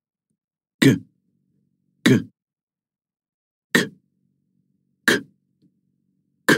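A voice saying the consonant sounds /g/ and /k/ on their own, one short sound at a time, as a pronunciation demonstration. There are five short sounds about a second and a half apart, with silence between them.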